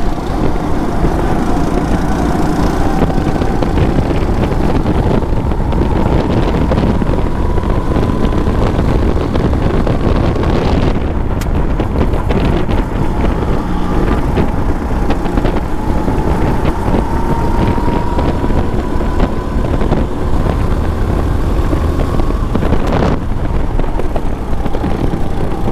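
Go-kart motor at full throttle, heard from on board, its pitch climbing slowly along the straights and dropping briefly about 11 s and 23 s in as the driver lifts for corners. Wind rushes over the microphone throughout.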